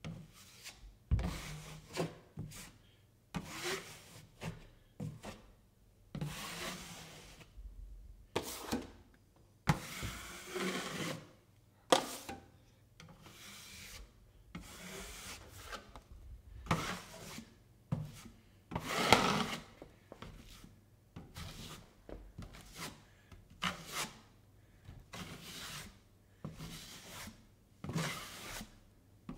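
Metal drywall taping knife scraping joint compound onto the wall beside a rounded corner bead, in a run of irregular strokes each lasting about half a second to a second.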